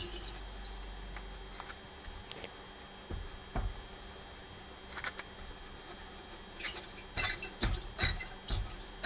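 Car transmission squeaking: short, irregular high-pitched squeaks and creaks, coming more often in the second half, over a low hum that stops about a second and a half in.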